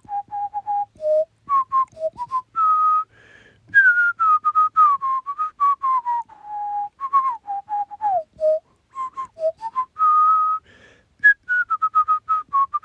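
A person whistling a tune: a quick run of short clear notes stepping up and down in pitch, with a few held longer.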